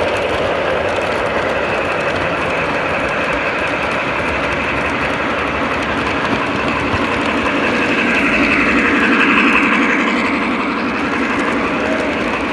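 Model train running past on the layout track: a black model steam locomotive and a long string of freight cars, their wheels making a steady rolling rumble on the rails. The sound swells about two-thirds of the way through as the cars pass closest.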